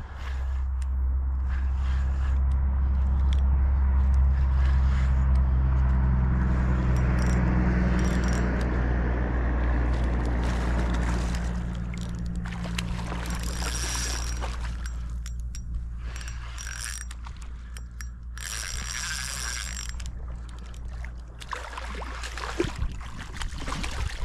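Spinning reel being cranked against a hooked trout on ultralight tackle: a steady low whir through the first half, then several bursts of ratcheting clicks from the reel's drag as line is given and taken.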